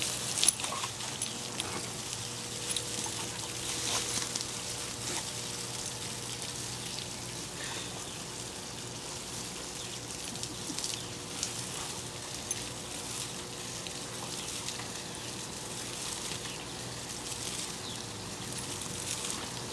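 Water from a garden hose spraying and pattering on grass and leaves, with irregular splashes as a dog snaps and drinks at the stream.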